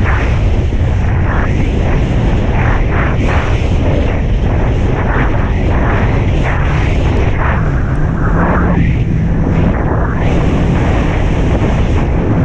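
Jet ski running on the water with heavy wind buffeting on the microphone and a string of short slaps of spray and hull on the waves. A steady engine tone comes through from about eight seconds in.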